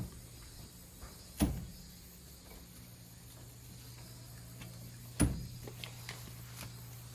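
Two sharp knocks about four seconds apart, over a steady low hum.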